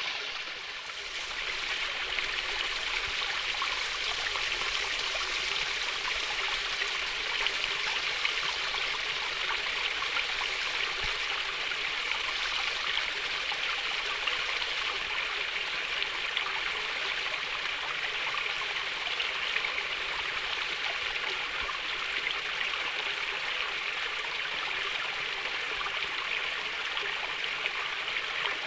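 A stream of water flowing and trickling steadily, a continuous gentle splashing.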